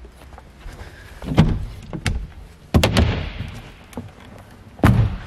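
The center fold-and-stow door and walkthrough windshield panel of a jet boat being opened: a series of knocks and clunks from the panels and latches. The loudest knock comes about three seconds in with a short scrape after it, and another knock comes near the end.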